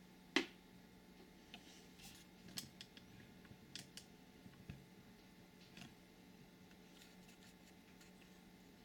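Scattered light clicks and taps, the sharpest about half a second in and the rest fainter and irregular until about six seconds in, over a faint steady hum.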